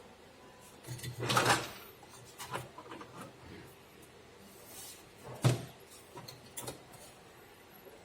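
Clatter from handling a piece of furniture, like a cabinet door or drawer: a rattling knock about a second in, a sharp knock about halfway through, and light clicks between.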